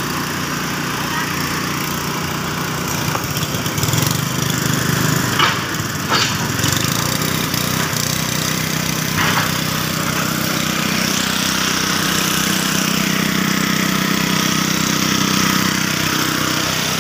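Small engine-driven portable water pump running steadily while it sucks water out of a flooded drainage trench, with a few sharp knocks about five to six seconds in and again around nine seconds.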